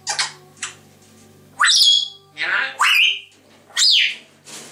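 African grey parrot whistling and squawking: about five loud calls, harsh squawks mixed with clear whistles, two that rise and hold briefly and one that falls near the end.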